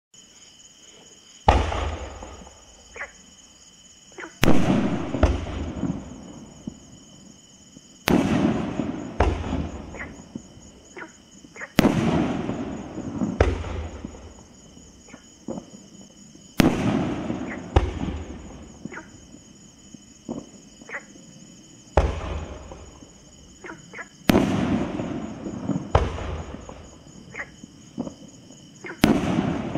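Consumer firework shooting off in a series of about a dozen loud booms at uneven gaps of one to four seconds, each trailing off in a crackle, with smaller pops in between. A steady high-pitched whine sits under it throughout.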